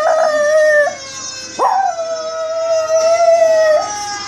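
Chihuahua howling along with a played-back fire engine siren sound effect, in long held tones with a sharp upward swoop about one and a half seconds in.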